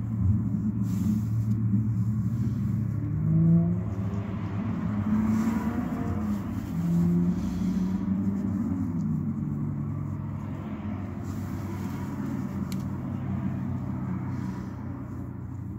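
A motor vehicle's engine running with a steady low hum. Its pitch rises and falls a few times in the first half, and it grows gradually quieter over the second half.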